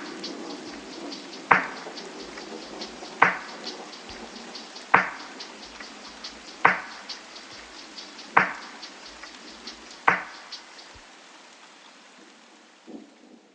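Background music with rain ambience: a soft beat about every second and a half to two seconds, light ticking in between over a rain-like hiss, all fading out near the end.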